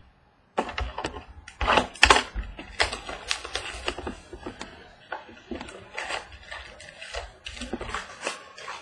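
A cardboard trading-card mini box being opened and handled, and its foil-wrapped pack pulled out: a run of sharp crackles, rustles and taps, loudest about two seconds in.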